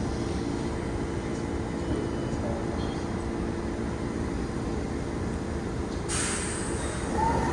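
R46 subway train standing in the station, its motors and air-conditioning giving a steady low hum. About six seconds in, a short sharp burst of air hisses from the train.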